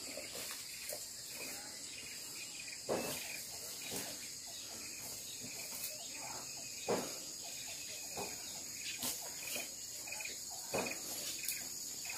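Insects trilling in a steady high drone, with a few soft rustles and light knocks now and then as loose oil palm fruit is picked up by hand from the ground.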